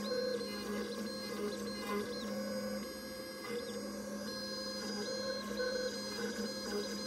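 PocketNC V2 desktop five-axis CNC mill cutting with a small end mill: a steady low hum under the motor tones that drive the axes, which stop, start and change pitch every fraction of a second as the toolpath moves.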